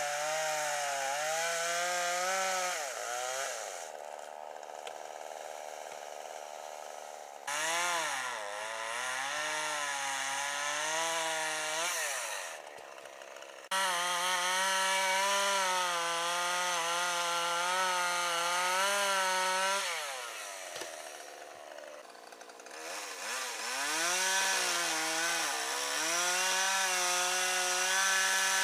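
Two-stroke chainsaw cutting through a tree trunk at high revs, its pitch sagging and recovering as the chain bogs in the wood. It drops away several times between cuts.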